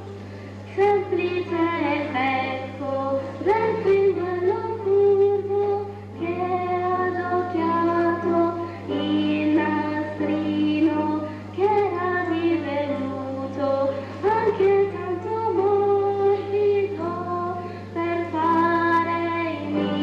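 A young solo singer sings a children's song in Italian with piano accompaniment, over a steady low hum.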